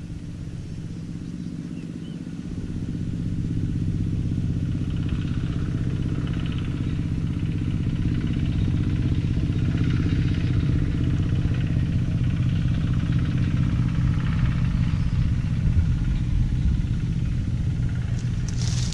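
A small engine running steadily, getting a little louder about three seconds in.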